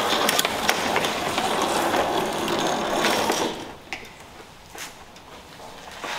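Hose reel of a wall-mounted Giraffe Tools electric pressure washer rattling and clicking rapidly as the hose is pulled off it. It stops about three and a half seconds in, leaving only a few faint clicks.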